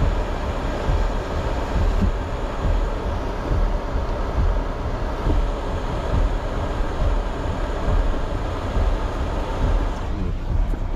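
Jeep Gladiator driving through floodwater and mud, heard from inside the cab: a steady low rumble with a rushing hiss over it. The hiss eases off near the end.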